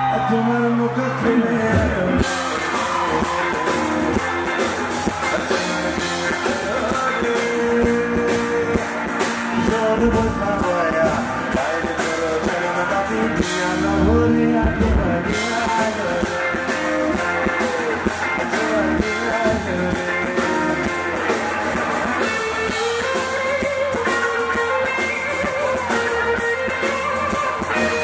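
Live band music: a male singer's vocals over electric guitar and band accompaniment.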